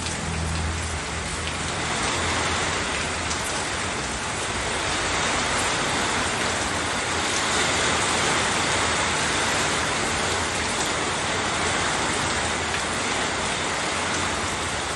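Heavy rain falling steadily, a dense even hiss, with a low hum underneath for the first second or two.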